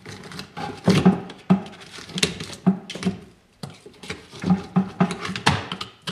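A big screwdriver scraping and prying boiled meat off a whitetail deer skull: irregular scrapes and clicks of metal on bone.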